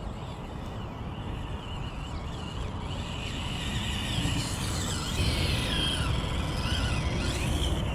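Outdoor background: a steady low rumble with a small bird singing in warbling, wavering phrases that become clearer after a few seconds.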